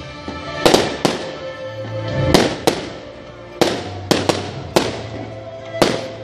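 Aerial firework shells bursting in a string of sudden bangs, about nine in six seconds and irregularly spaced, some in quick pairs. Music plays under them throughout.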